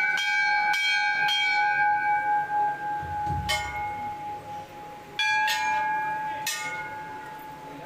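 Hanging temple bell rung by devotees: struck three times in quick succession, then a few more times after a pause of about two seconds, each stroke ringing on with a long, steady tone.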